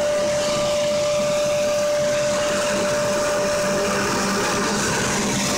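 PVC granulating machine running: a steady whir of motors and air-blower noise with one constant whine running through it.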